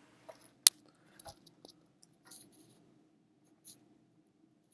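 Stylus tapping and scratching on a drawing tablet in short strokes, with scattered light ticks and one sharp click about two-thirds of a second in.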